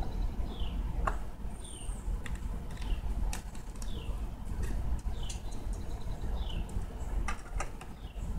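A bird repeats a short falling chirp about once a second over a steady low rumble. Scattered light clicks come from a hand screwdriver driving screws into a metal door-jamb plate.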